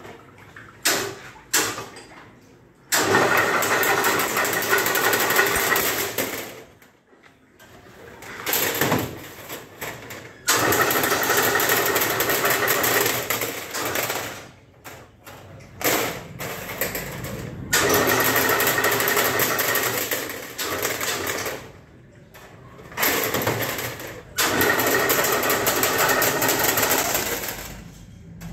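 Chain link mesh weaving machine running in four spells of about three to four seconds each, with quieter gaps between them holding short clicks and knocks.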